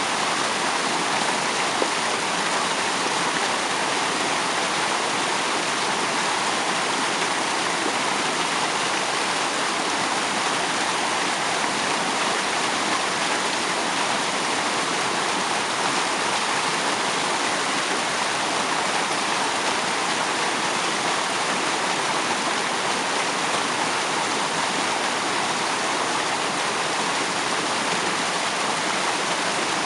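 Waterfall splashing and spraying: a steady, even rush of falling water.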